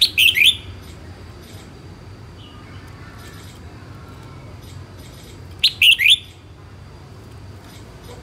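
Caged red-whiskered bulbul singing two short, quick phrases of bright notes, one at the start and another about five and a half seconds later.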